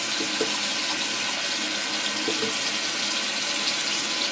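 Bathroom sink tap running steadily, water splashing into the basin.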